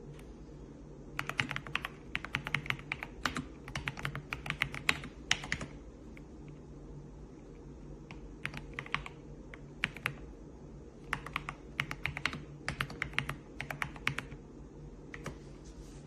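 Typing on a Redragon K668 full-size mechanical keyboard: quick runs of key clicks in several bursts, with pauses of a second or two between them.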